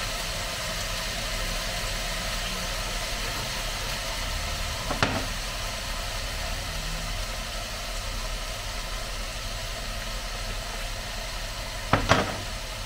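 Minced meat, peppers and onion frying in a pan with a steady sizzle. A sharp click about five seconds in and two quick knocks near the end.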